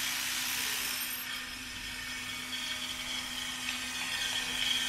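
Angle grinder running, apparently sharpening steel anchors for driving in. A high steady whine comes in about halfway through.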